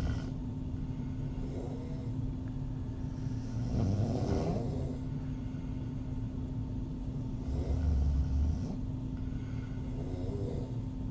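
Woman snoring with her mouth open: four snores a few seconds apart, the loudest about a third of the way in and just past the middle. A steady low hum runs underneath.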